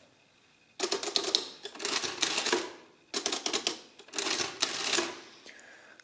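Everest Plurima Manuale, a hand-cranked mechanical adding-listing machine, cycled twice by its side crank. Each pull is a clattering run of rapid clicks lasting about two seconds, as the mechanism prints the entered number and adds it to the register.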